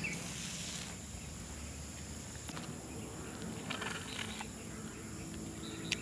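Faint outdoor ambience of insects and birds, steady and low, with a short soft rush of noise at the start and a small click near the end.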